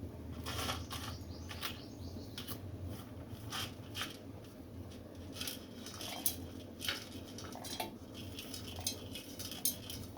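Irregular clinks and knocks of kitchen utensils and dishes as chopped onion, garlic, chillies and whole spices are put into a mixer-grinder jar.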